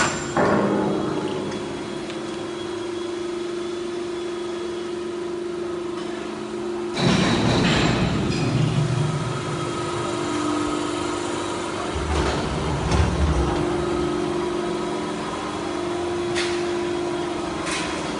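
Hydraulic press brake's electric motor and hydraulic pump running with a steady hum. A louder rushing noise rises about seven seconds in, with low rumbles after it, and a few sharp clicks come near the end.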